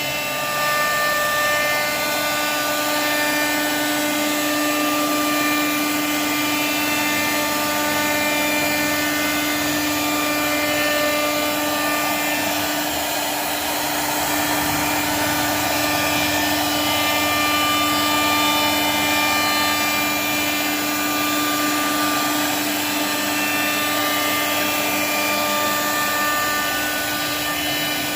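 CNC router spindle running steadily with a high whine as it cuts flutes into wood, with a steady noisy rush of the bit in the wood.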